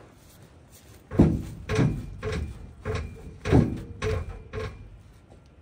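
Rhythmic creaking squeaks starting about a second in, roughly seven strokes a little over half a second apart, several falling in pitch, from a dry metal joint being worked back and forth during exhaust work under a car. It needs a little oil.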